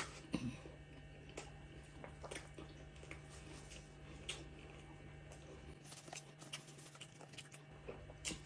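Close-miked chewing of a mouthful of fried chicken burger: scattered soft wet smacks and clicks, coming closer together about six seconds in, over a faint steady hum.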